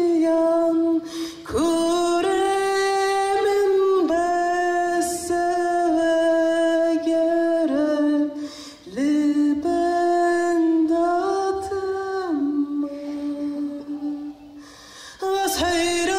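A single voice singing a slow melody of long held notes, some sliding up into pitch, with little else under it. The line drops lower and softer a few seconds before the end, then comes back louder.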